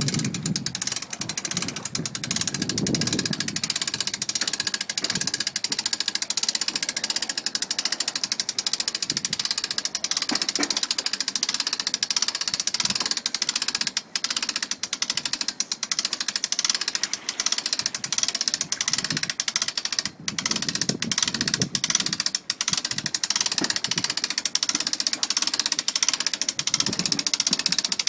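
Hand-cranked trailer winch ratcheting steadily, a rapid run of clicks as it winds in the strap and hauls a jet ski up the trailer's rollers, with brief pauses in the cranking about 14 and 20 seconds in.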